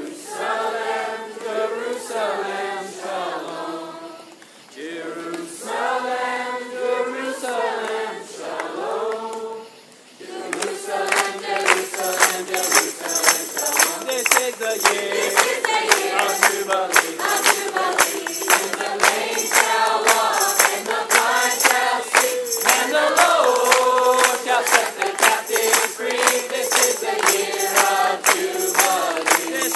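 Choir singing, with no beat under the voices at first; about ten seconds in, a band with a steady, fast beat and high shimmering percussion comes in and the singing continues over it.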